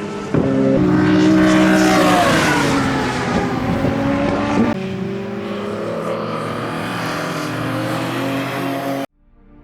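Tuned BMW E46 M3's S54 straight-six engine and intake running hard. The pitch falls for a couple of seconds as the revs drop, shifts abruptly about halfway through, then holds fairly steady. The sound cuts off suddenly near the end.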